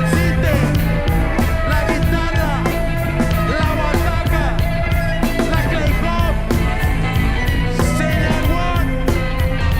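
A live hip hop, rock and blues fusion band playing: a steady drum beat, heavy bass, and guitar and lead lines that bend up and down in pitch.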